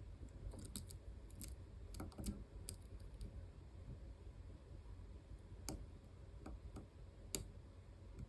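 Faint, scattered clicks of a lock pick working the spring-loaded sliders inside an EVVA ICS cylinder, with two sharper clicks in the second half.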